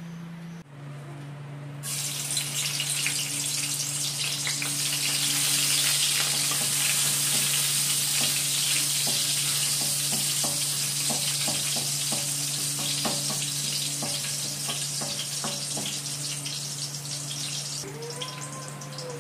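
Chopped garlic sizzling in hot oil in a wok and stirred with a wooden spoon. The sizzle starts suddenly about two seconds in and softens near the end, with scattered clicks, over a steady low hum.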